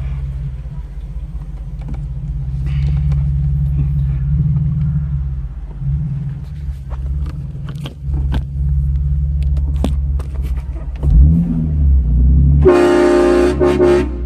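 Nissan 370Z's V6 running with a steady low rumble. About twelve and a half seconds in, a car-mounted train horn blasts a loud multi-tone chord for about a second and a half.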